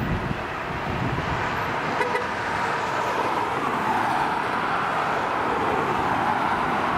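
Twin Williams FJ44 turbofans of a Cessna 525A CitationJet CJ2 landing, heard from a distance: a steady jet whine over a rushing noise, growing slowly louder.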